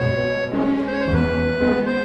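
Background music: a sustained melody over low bass notes that change about every half second.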